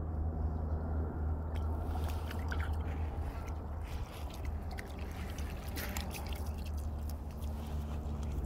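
A cocker spaniel wading in shallow river water, its paws making small splashes and sloshes, then stepping onto a gravel shore near the end. A steady low rumble runs underneath.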